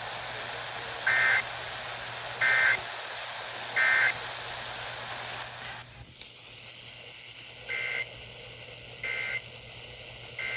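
EAS End of Message signal: three short bursts of SAME digital data tones, each a raspy two-tone warble about a third of a second long, repeated about every 1.4 s over FM radio hiss. It marks the end of the alert. About six seconds in, the hiss drops with a click and a second, fainter set of three end-of-message bursts follows, the last near the end.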